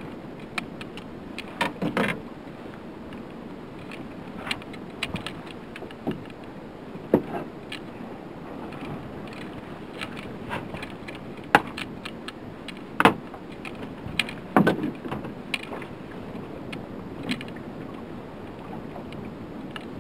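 Water lapping and slapping against a small boat's hull over a steady wash of wind and sea, with irregular sharp knocks and clicks scattered through it.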